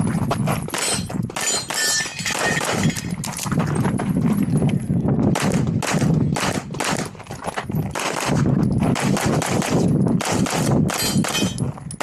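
Red-dot-sighted competition pistol fired in fast strings of shots, with a short pause about seven seconds in. Steel targets ring briefly when hit.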